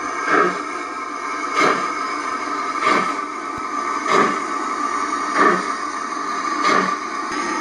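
Gauge 1 model BR 38 steam locomotive running slowly, giving six soft chuffs about one every 1.25 seconds, matched to the puffs from its synchronized smoke generator, over a steady hum.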